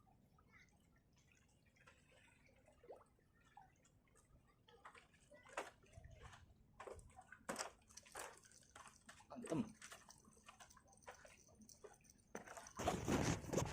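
Faint, irregular water drips and small splashes, growing busier, then a louder rush of noise near the end.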